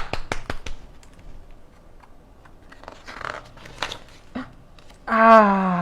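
Quick hand clapping, about six claps a second, that stops about half a second in; then soft rustling and light handling of paper, like a picture book's page being turned. Near the end a woman's voice gives one long 'ooh' that falls in pitch, the loudest sound here.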